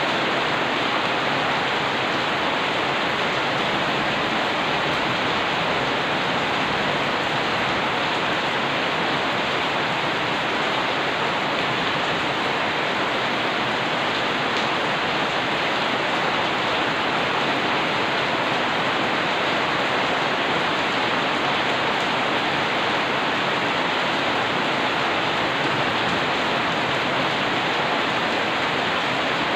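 Steady rain falling in an even hiss, with no thunder.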